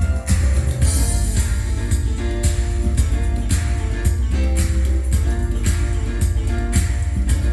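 Music with guitar and a steady drum beat, about two beats a second over heavy bass, played back through a hi-fi amplifier and loudspeakers.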